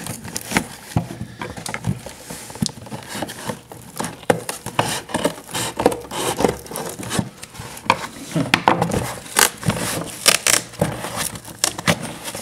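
A cardboard shipping box being handled and opened by hand: irregular scrapes, knocks and crinkling, busier in the second half.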